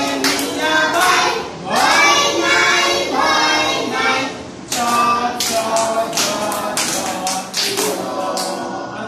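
A group of young children singing a Bengali nursery rhyme together, clapping their hands in time, about three claps a second.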